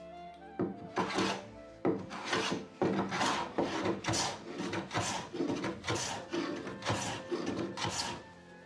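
A hand tool scraping along wood in repeated strokes, about eight of them at roughly one a second, as a door part is shaped by hand.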